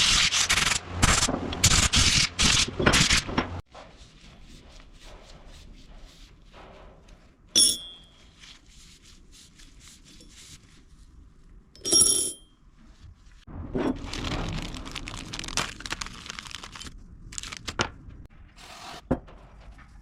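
Hand work on a metal part: a few seconds of rapid, loud scraping strokes, then two sharp ringing metal clinks a few seconds apart, then another spell of rubbing.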